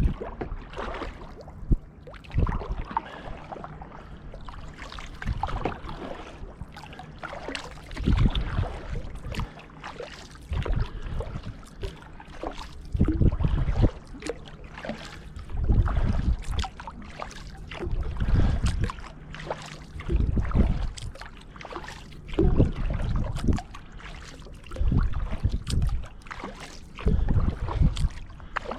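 Kayak paddle strokes: the blade dips and pulls through the water with a splash and dripping, a stroke about every two and a half seconds.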